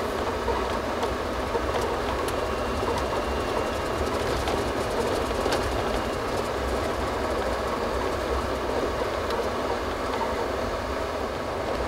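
Steady road and engine noise inside a moving vehicle's cabin, with a few faint rattles.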